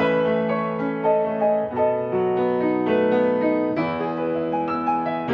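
Grand piano played solo: a melody over held chords, the notes changing about every half second to a second.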